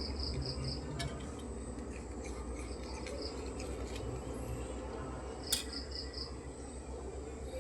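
High-pitched chirps in quick runs of three or four, repeated several times over a steady low hum, with a sharp click about five and a half seconds in.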